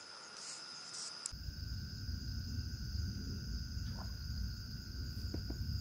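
Night insects, crickets, trilling steadily at several high pitches. A low rumble comes in suddenly about a second in and runs under them.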